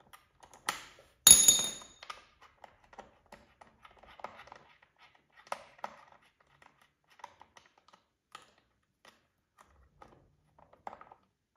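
Hand tool clicking and tapping on the lower timing belt guide of a Subaru EJ257 engine as its hex bolts are snugged: scattered light clicks, with one sharp, ringing metal clink a little over a second in.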